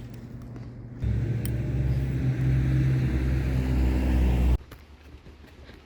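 A motor vehicle's engine running with a steady low hum. It starts suddenly about a second in and cuts off abruptly about a second before the end.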